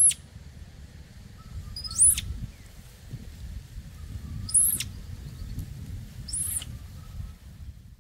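Four short, high-pitched animal chirps about two seconds apart, each rising and then falling in pitch, over a low background rumble.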